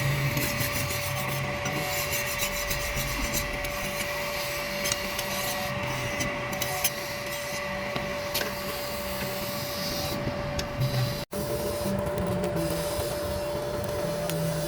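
A small electric abrasive tool running steadily with a constant hum while it grinds and rubs against metal. The sound cuts out for an instant a little past the middle, then carries on.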